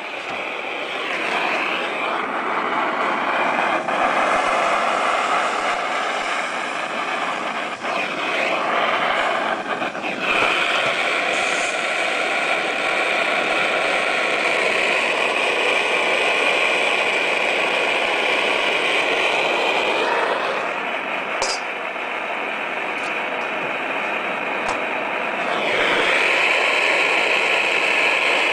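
Gas-fired soldering iron's burner running with a steady hiss while a corner seam of zinc flashing is soldered, its tone shifting a few times.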